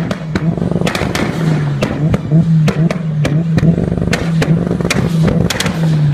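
Mitsubishi Lancer Evolution's turbocharged four-cylinder engine held at steady revs, broken by a rapid, irregular string of sharp pops and bangs from the exhaust.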